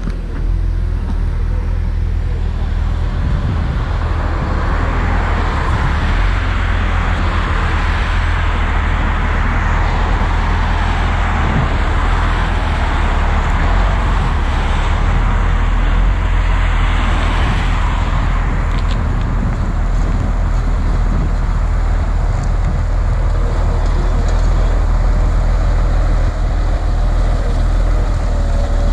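Volvo motor grader's diesel engine running steadily with a low drone, with the hiss and crunch of gravel being pushed and spread by the blade. The gravel noise is strongest through the middle stretch.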